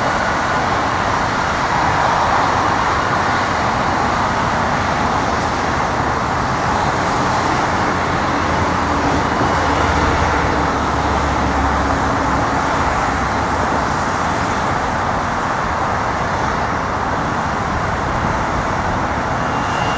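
Boeing 717's twin rear-mounted Rolls-Royce BR715 turbofans at takeoff thrust: a steady jet roar through the takeoff roll and climb-out, with a deeper rumble swelling briefly about halfway through.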